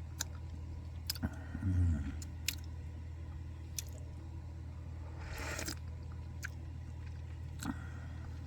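A person tasting tea in a quiet room with a steady low hum: a few light clicks of teaware, a short low murmur about two seconds in, and a half-second breathy intake of air about five seconds in.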